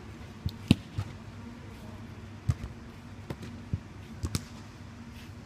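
A footvolley ball struck again and again in a passing drill: about eight sharp thuds at uneven intervals, the loudest one under a second in. A steady low hum runs underneath.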